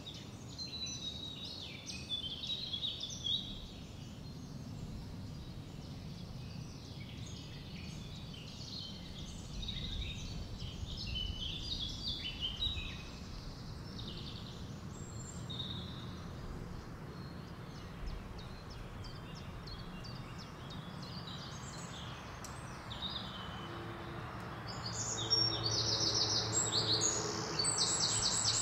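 Small birds chirping and singing over a steady low background noise, the chirping becoming louder and quicker near the end.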